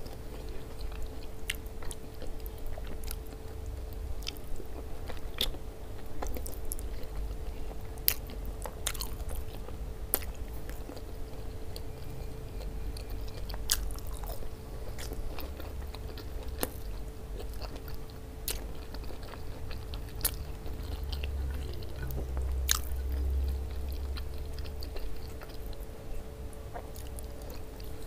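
Close-up chewing and biting while eating okra stewed with meat in tomato sauce, with rice, by hand, with scattered sharp wet mouth clicks. A faint steady hum runs underneath.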